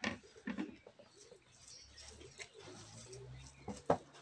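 Eating by hand: fingers working rice on a steel plate and chewing, with small clicks and a sharp knock against the plate near the end, over a low steady hum.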